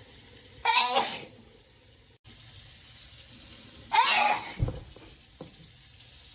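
A person sneezing twice during a sneezing fit, the sneezes about three seconds apart, over a steady background hiss.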